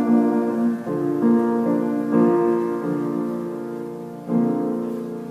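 Slow piano chords, each one struck and then left to fade. The last chord comes about four seconds in and rings on as it dies away, closing the piece.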